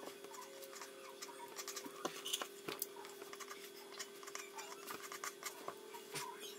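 Pencil drawing on paper: faint, irregular scratchy ticks of short strokes, over a steady hum.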